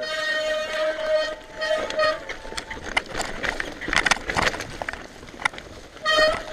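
A mountain bike descending a rocky trail. For about the first two seconds a high, steady squeal with overtones comes and goes in short pulses, the sound of disc brakes squealing as they are dabbed. It then gives way to the clatter and knocking of the tyres and frame over stones, and the squeal returns near the end.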